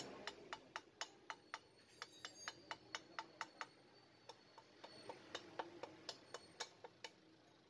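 A run of sharp, light clicks, about three to four a second, with a short pause about four seconds in.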